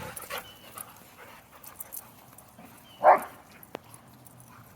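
A dog gives one short, sharp bark about three seconds in, over faint background noise.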